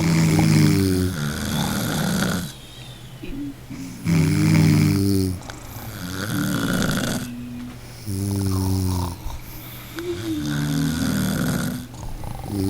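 A person snoring in a steady rhythm, about every four seconds. Each breath is a low, pitched snore of about a second, followed by a longer breathy rush of air. Three full breaths are heard, and a fourth begins near the end.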